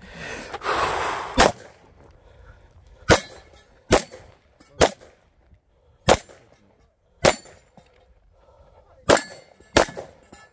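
Aimed single shots from a Beretta 92-series 9mm pistol, about eight cracks spaced unevenly at roughly one a second. A rustling, scuffing noise comes before the first shot.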